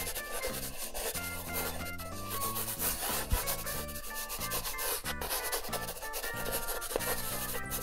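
Black felt-tip permanent marker rubbing and scratching across paper in many quick strokes as outlines are inked over. A light background tune plays underneath.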